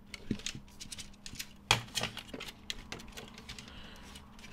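Irregular light clicks and small rattles, with one louder knock about a third of the way in, as the metal chassis and circuit board of a Roland JP-8080 synthesizer are handled and turned. The rattle comes from a loose screw inside the unit, a stray conductive part that could short the circuitry.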